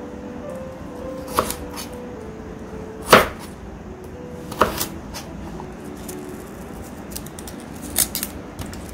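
Soft background music with a handful of sharp kitchen knocks and clicks from food preparation, the loudest a little over three seconds in.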